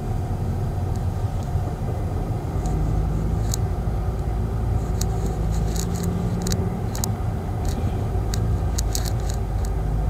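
Kia Seltos driving on a road, heard from inside the cabin: a steady low rumble of engine and tyres, with a low hum for a few seconds in the middle. Scattered sharp clicks come in from about a third of the way in and grow more frequent toward the end.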